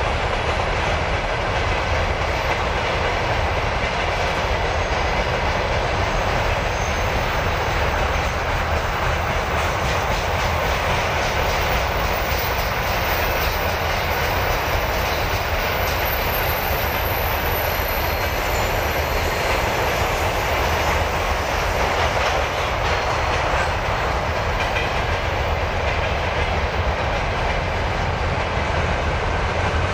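Freight train rolling past, its wheels clattering steadily over the rail joints.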